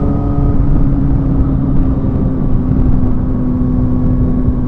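Yamaha R1 inline-four engine running at a steady, unchanging pitch while cruising with the throttle held by a throttle lock, over loud wind and road rush.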